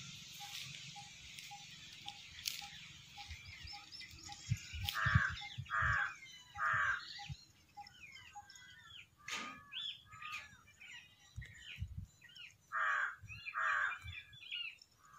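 Crows cawing: three caws about a second apart, then two more near the end, with smaller birds chirping in between. A steady hiss and a faint regular tick, about three a second, fill the first few seconds.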